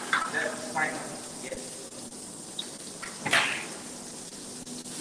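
Butterfish frying in butter and oil in a pan, a steady sizzle. About three seconds in there is a louder, brief hiss as the hot fat is spooned over the fish (basting).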